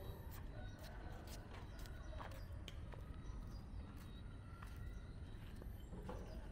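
Chickens clucking faintly in short, scattered calls, over a steady low background rumble.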